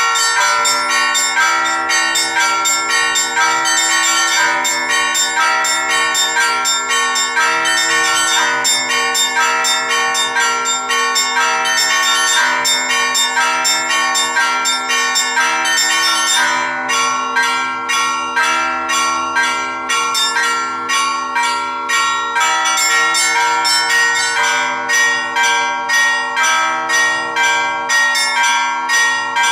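Seven Orthodox church bells rung in a weekday peal by an automated electronic bell-ringer: quick strikes on the small bells over the ringing of the larger bells. About halfway through, the rapid high strikes thin out to a slower, even beat of about two strikes a second.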